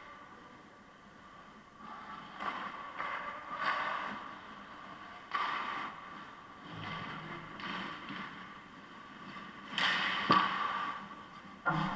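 Ice hockey game sounds in a rink: skates scraping and carving the ice in intermittent rushes, with a sharp knock about ten seconds in.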